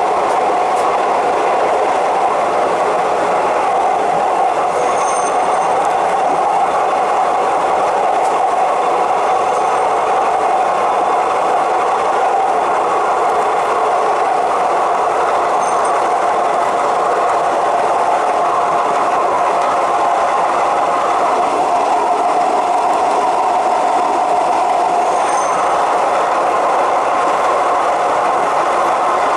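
Bangkok suburban commuter train running at speed on elevated track: a steady rail running noise with a faint hum, with no change in level throughout.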